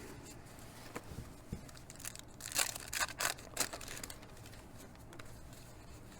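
Cardboard baseball trading cards being handled and flipped, with a cluster of short rustling scrapes about two and a half to three and a half seconds in and a few faint ticks before them.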